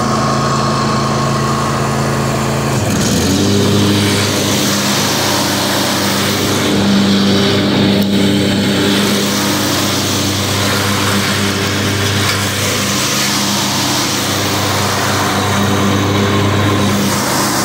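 Craftsman Z6000 zero-turn mower's 22-horsepower engine running steadily as the mower drives over grass. About three seconds in, its note drops and a brighter hiss joins it, as the lowered deck starts cutting under load.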